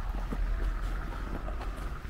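Low rumble of wind buffeting the microphone, with faint footsteps crunching on packed snow.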